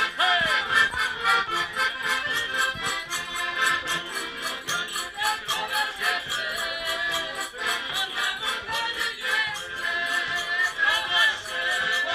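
Background music with a steady fast beat and a bright melody.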